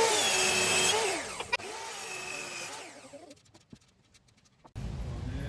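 Power drill running in two short bursts, its motor whine spinning up and down; the first burst is louder, the second lasts about a second and a half.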